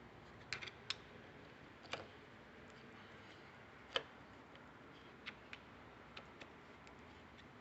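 Scattered light clicks and taps of hand tools and metal parts being handled while a starter motor is taken apart, a few at a time with the sharpest about four seconds in, over a quiet background.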